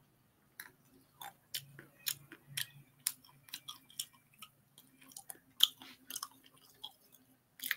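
Quiet, irregular little clicks and crunches of fingernails being bitten close to the microphone, a few a second.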